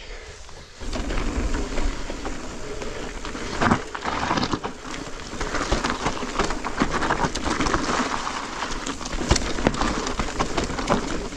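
Electric mountain bike riding down a rough, loose trail: tyres crunching over dirt and stones and the bike rattling in a dense run of crackles and knocks, with wind rumble on the microphone. The noise rises about a second in.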